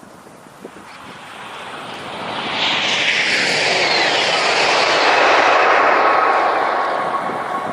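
High-speed train passing at speed: a rushing roar that swells over a couple of seconds, holds loud with a falling whine, then fades as it moves away.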